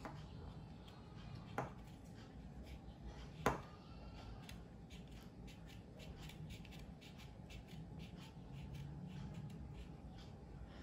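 Scissors cutting through the hard, dry husk of a mango stone: faint small snipping clicks, with a sharper snap about three and a half seconds in.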